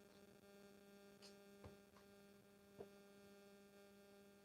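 Near silence with a faint steady electrical hum, broken by a few faint ticks.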